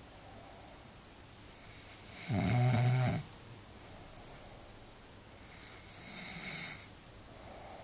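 A person snoring in sleep. There is one loud, low-pitched snore on the in-breath, lasting about a second, a little over two seconds in. About three seconds later comes a softer, breathier one.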